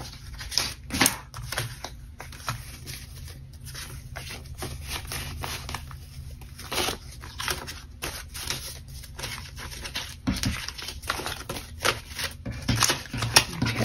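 Paper banknotes being handled and counted by hand: crisp, irregular rustling and flicks of bills as they are fanned and tucked into a binder pocket.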